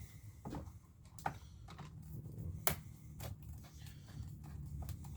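Scattered light clicks and taps, about six spread irregularly, from handling tools and the plastic chainsaw housing during disassembly, over a faint steady low hum.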